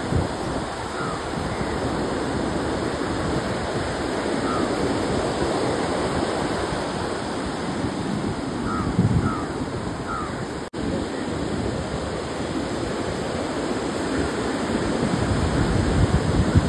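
Rough sea surf breaking and washing up a sandy beach, a steady rush of water. A few faint short bird calls sound over it, a couple of them close together about nine to ten seconds in.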